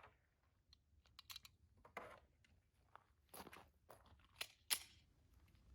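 A handful of short, sharp clicks and clacks of gun handling, the loudest near the end: loading a single round into a Shield Arms S15 magazine, seating it in the Glock pistol and racking the slide before firing.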